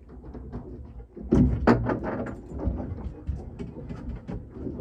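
A run of knocks and clatters, hard objects striking one another, the two loudest close together about a second and a half in, over a steady low rumble.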